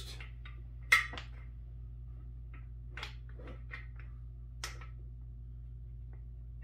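A few light clicks and knocks from a square-tube metal desk leg being fitted against the desktop, the sharpest about a second in, over a steady low hum.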